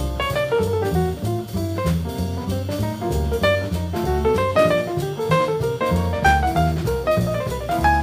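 Small-group bebop jazz: drum kit and double bass keep time under a fast melodic lead line.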